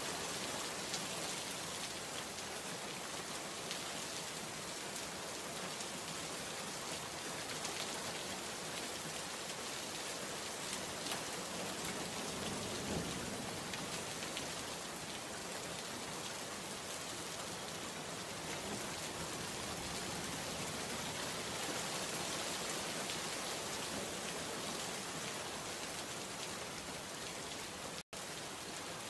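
Steady rain falling, an even continuous patter, with a split-second gap of silence about a second before the end.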